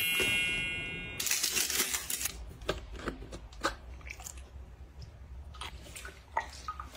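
Clothes being handled and pressed into soapy water in a plastic basin, making soft squishing and crinkling with scattered small clicks and taps. It opens with a brief electronic tone that stops about a second in, followed by about a second of hiss.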